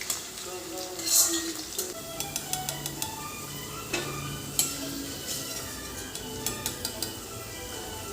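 A metal spoon clinking and scraping against a cooking pan while food is stirred, with a louder clatter about a second in and quick repeated taps later. Soft instrumental music plays underneath.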